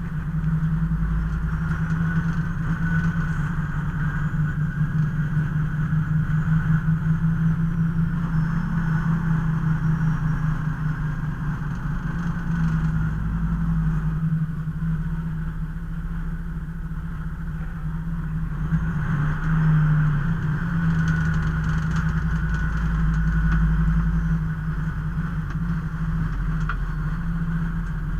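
Fire squad vehicle's engine running steadily while driving, heard from inside the cab, with low road rumble and a slight rise and fall in loudness.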